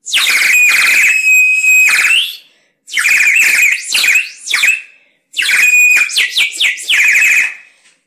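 Green plastic water bird whistle blown, giving a loud, high warbling trill in three long blasts with short gaps.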